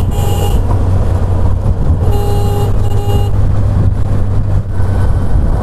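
Steady engine and road rumble heard from inside a moving Maruti Gypsy jeep, with short horn beeps: one at the start and two more a little past two seconds in.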